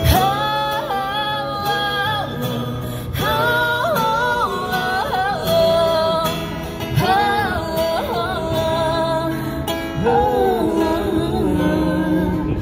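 A woman singing live over guitar accompaniment, holding long notes that waver.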